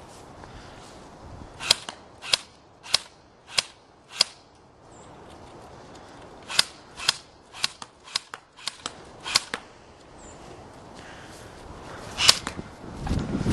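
Airsoft rifles firing single shots as sharp cracks: five spaced about half a second apart, then a quicker run of about ten a couple of seconds later, and one more near the end. A gust of wind buffets the microphone at the very end.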